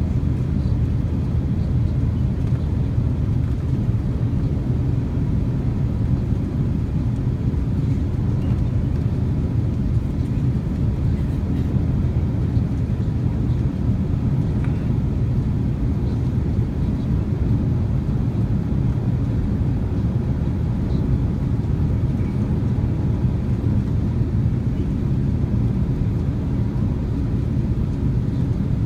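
Steady low rumble of an Airbus airliner's cabin in flight: jet engine and airflow noise heard from a passenger seat, even and unchanging.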